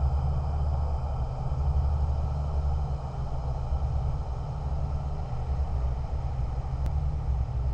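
Steady low rumble of a car running, engine and road noise with no sudden events.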